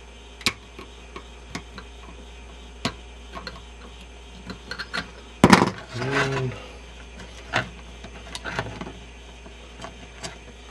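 Light scattered clicks and ticks of small cutters or pliers working capacitor leads on a circuit board. About five and a half seconds in there is a louder knock and handling clatter as the board is moved.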